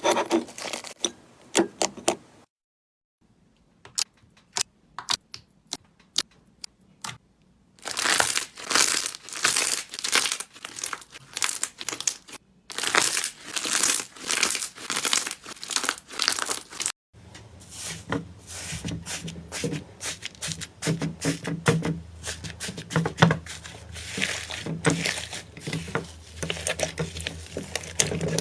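Slime being squeezed, pressed and stretched by hand, giving dense crackling and popping clicks. The clicks thin out for a few seconds early on and drop out briefly twice, and from about two-thirds of the way through a low steady hum sits beneath them.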